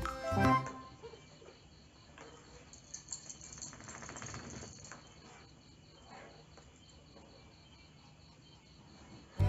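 Faint, quiet room sound with crickets chirping steadily in a fast pulsing trill. Soft rustling and handling noise rises from about three to five seconds in. Background music cuts off within the first second.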